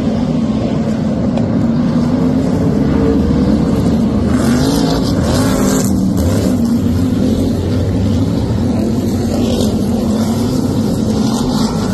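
Several BriSCA F1 stock car V8 engines running together, loud and steady, their pitch rising and falling as the drivers rev and lift around the oval.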